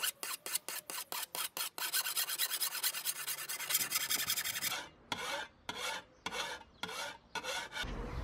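Flat hand file rasping across the edge of a steel shovel blade in quick back-and-forth strokes, sharpening it. The strokes run together into a continuous rasp for a few seconds midway, then come separately again.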